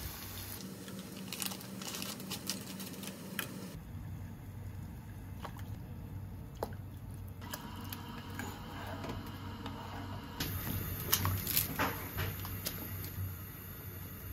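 Home cooking sounds in a run of short cuts: tofu sizzling in oil in a frying pan, a soy sauce and mirin sauce bubbling while a spoon stirs it in a saucepan, and thick udon noodles going into a pan, with scattered clicks and taps of utensils on the pans.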